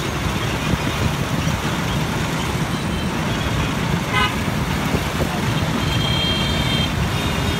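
Bus engine and busy road traffic making a steady low rumble, with a short vehicle-horn toot about four seconds in.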